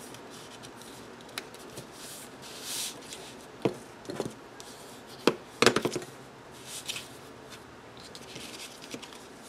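Patterned scrapbook paper rustling and crinkling as a paper envelope is unfolded and refolded by hand on a tabletop, with several light taps and knocks, the loudest cluster a little over halfway through.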